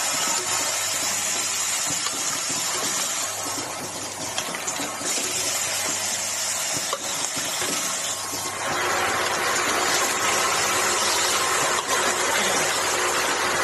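Automatic aerosol-cap assembly machine running: a steady mechanical noise with an airy hiss. It grows a little louder and brighter about nine seconds in.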